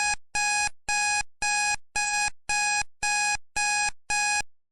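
Countdown timer sound effect: a run of identical short electronic beeps, about two a second, each a pitched tone with overtones that fades quickly. The beeps stop shortly before the end.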